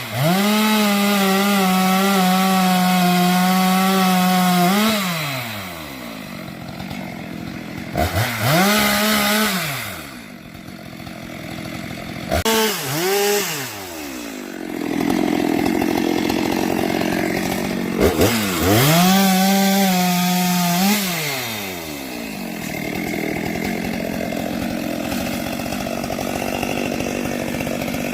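STIHL two-stroke chainsaw revved to full throttle four times, holding a steady high pitch and then dropping back to idle each time. The first burst is the longest, about five seconds, and the third is the shortest.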